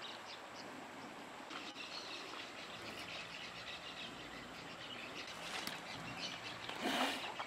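Birds chirping over a steady background hiss, with a brief whoosh of noise about seven seconds in.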